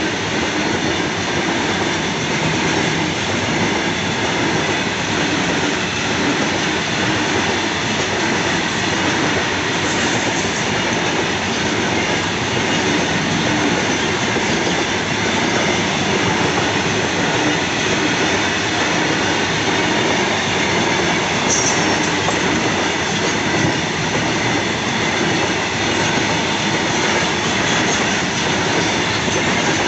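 Covered goods wagons of a long freight train rolling past close by, a steady noise of wheels running on rail joints and wagon bodies rattling. About twenty-two seconds in there is a brief high squeal of wheel against rail.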